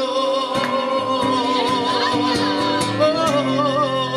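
A man singing a long held note with vibrato over a strummed acoustic guitar, closing a Spanish ballad.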